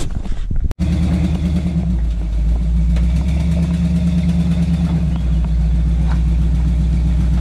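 Lifted squarebody Chevy Blazer's engine running low and steady as it crawls over boulders, getting a little louder from about two seconds in.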